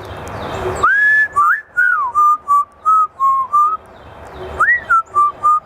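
African grey parrot whistling a tune: a rising, held note, then a run of short, clipped notes, with the phrase starting over near the end.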